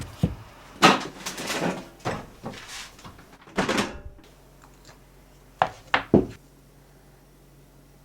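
Objects being handled: a run of knocks and clattering rustles, then three sharp knocks about six seconds in.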